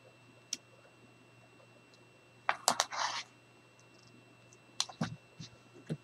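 Scattered light clicks and a short scratchy rasp from hands working a roll of double-sided score tape on paper and chipboard: a cluster of clicks with the rasp about two and a half seconds in, and more clicks near the end. A faint steady hum runs underneath.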